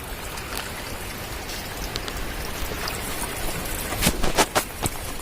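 Rain falling steadily, an even hiss, with a cluster of sharp taps about four seconds in.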